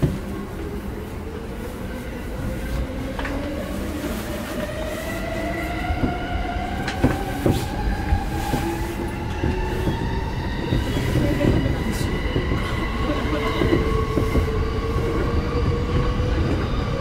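Electric commuter train running, its traction motors whining in several tones that rise steadily in pitch as it picks up speed, over a low rumble of the wheels and scattered clicks from the rails.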